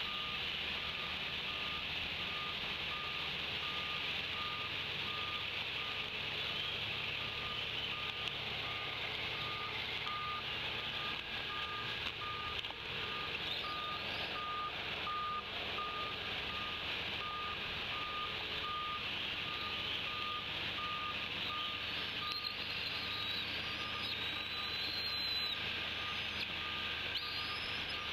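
Steady rain hiss on the nest and surrounding leaves, with an even, pulsing high beep over it and a few faint bird chirps near the end.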